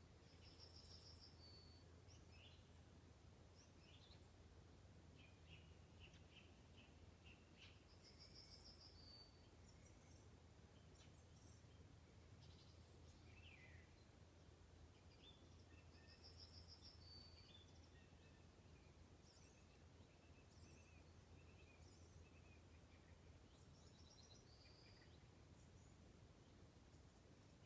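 Faint birdsong: several short chirps and trilled phrases, with one high trilling phrase repeated about every eight seconds, over a steady low hum.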